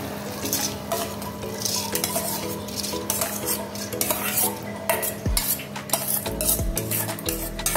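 Steel spoon scraping and clinking against a steel bowl as raw rice is pushed out into a pot of bubbling sugar syrup, with a few dull knocks in the second half.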